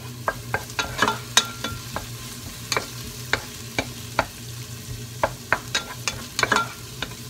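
Wooden spatula stirring sliced onions frying in olive oil in a pot: irregular knocks and scrapes of the spatula against the pot over a light sizzle.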